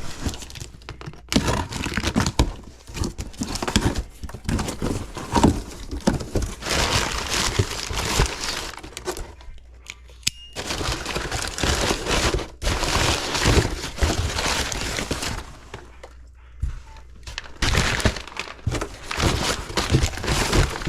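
Rough scraping and crinkling with occasional knocks as furnace parts are worked on by hand, broken by short pauses about ten and sixteen seconds in.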